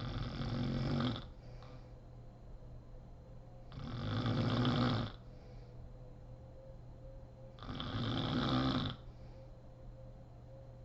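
A sleeping woman snoring: three snores about four seconds apart, each lasting a little over a second.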